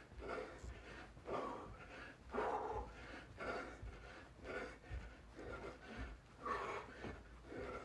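A man breathing hard while doing jumping jacks, with a loud breath about once a second and dull thuds of his feet landing on a carpeted floor.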